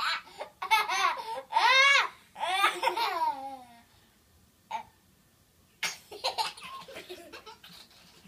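Young children laughing hard: a run of high-pitched laughs rising and falling in pitch over the first few seconds, a short lull, then more bursts of giggling from about six seconds in.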